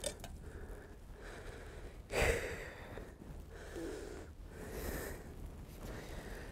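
A man breathing out in several noisy puffs, the sharpest about two seconds in, while handling a hooked fish.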